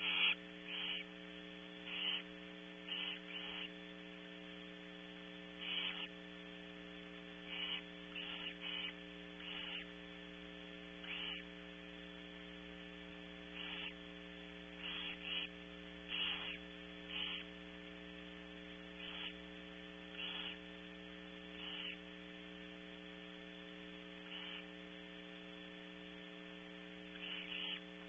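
Short, rasping hisses of barn owl nestlings begging at a feeding, repeating irregularly every second or two, over a steady electrical hum.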